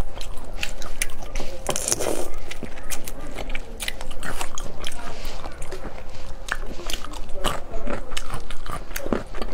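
Close-miked eating of marinated whole shrimp: shells cracking and peeling under the fingers, then biting and chewing, with many small crunches and clicks.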